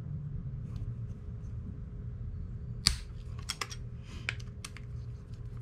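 Small metal clicks and light scraping as a 3 mm T-handle hex key backs out the pad-retaining bolt of a Shimano XT four-piston brake caliper. A sharp click comes about halfway through, then several more in quick succession, over a steady low hum.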